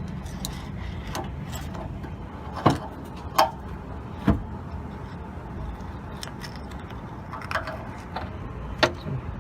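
Scattered metal clicks and knocks, about five of them spread over several seconds, as the new clutch cable end of a Porsche 914 is handled and wrapped around its fitting, over a steady low hum.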